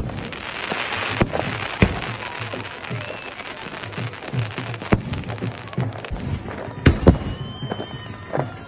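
Aerial fireworks bursting overhead: a string of sharp bangs at irregular intervals, with a crackling hiss of burning stars in the first second. The loudest pair of bangs comes about seven seconds in.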